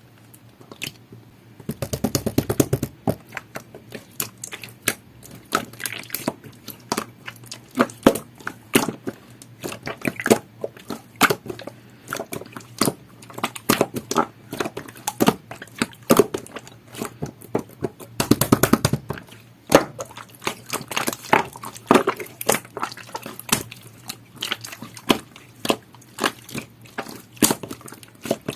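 Jelly-textured slime being squished, pressed and poked by hand: an irregular run of wet clicks and pops, with two denser bursts of crackling, about two seconds in and again about eighteen seconds in.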